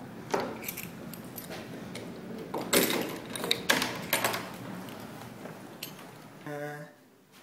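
Keys jangling on a wooden key tag and clicking in a door lock, several sharp rattles and clicks in the first four seconds, as a room door is unlocked. A short low tone sounds near the end.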